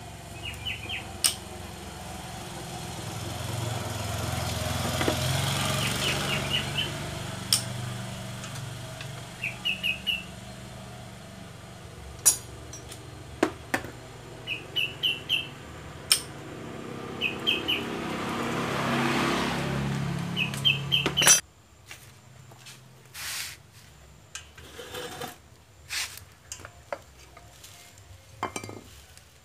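Metal hand tools clicking and clinking against motorcycle engine parts during a teardown, in scattered sharp taps. Small birds chirp in quick runs of three or four notes, and a vehicle engine hum swells and fades twice; about two-thirds through, the background drops away suddenly, leaving only scattered tool clicks.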